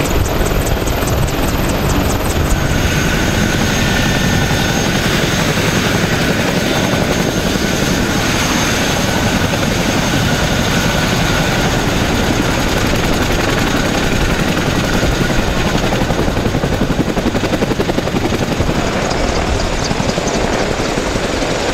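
Boeing CH-47 Chinook tandem-rotor helicopter running close by: a loud, steady, rapid chop from the rotor blades, with a steady high turbine whine over it for much of the time.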